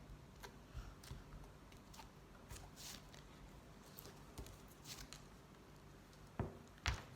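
Fluffy slime being squished and pressed by hand, giving faint scattered crackles and small pops, with two louder pops near the end.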